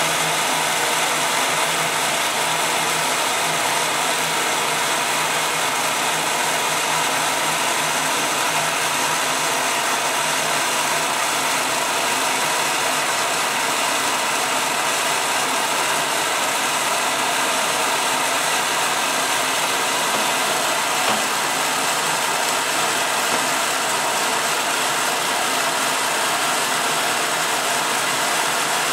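Semi-automatic top-loading washing machine running its pre-wash with the lid open: a steady mechanical running noise that holds at an even level.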